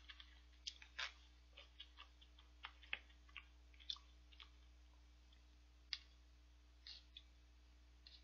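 Faint, scattered light clicks and taps of wooden chopsticks being handled, a dozen or so, thinning out after the first four seconds or so.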